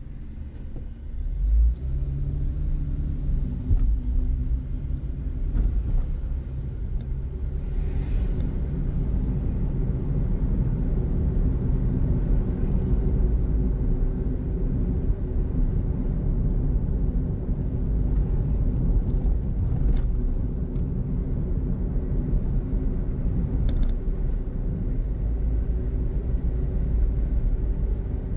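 Car engine and road noise heard from inside a moving car: a low, steady rumble that grows louder about two seconds in, with a slight rise in engine pitch, then holds steady.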